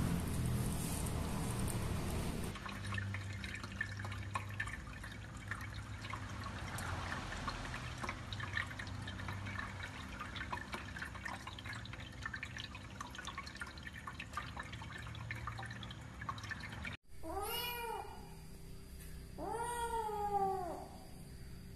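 A cat meows twice near the end, each call rising then falling in pitch, the second longer and louder. Before that is a low background with small ticks and drips, from a kitten eating from a steel bowl and then drinking at an electric pet water fountain.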